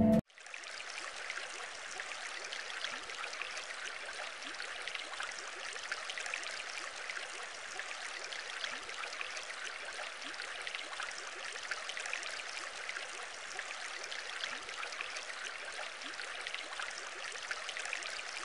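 Steady trickling, splashing water with many small droplet ticks: an aquarium water soundscape. It starts abruptly as the music stops.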